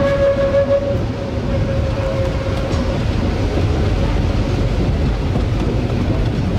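Rigi rack-railway train running along its track: a steady low running noise, with a steady whine that fades out within the first second or two.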